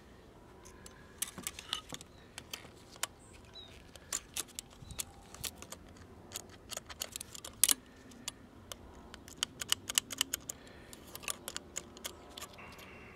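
Irregular light clicks and taps of an All American Five tube radio's sheet-metal chassis being handled and turned over in gloved hands, with one sharper click a little past halfway.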